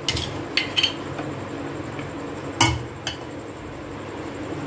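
Steel spoon and stainless steel bowls clinking against the rim of a steel mixer-grinder jar as ingredients are added: a few sharp clinks, the loudest about two and a half seconds in, over a low steady hum.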